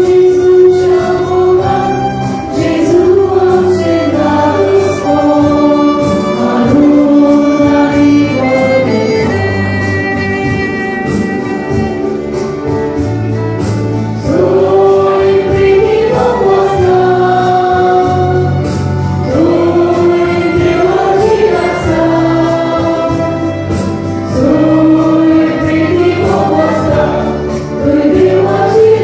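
Church choir singing a hymn, accompanied by a violin and an electronic keyboard; the voices carry a slow melody over long, held low keyboard notes.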